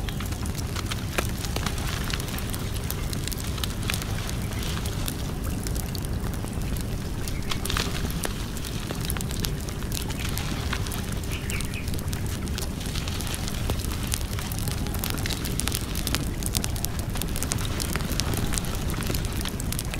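Wood fire burning steadily, with a low rumble of flames and frequent sharp pops and crackles scattered throughout.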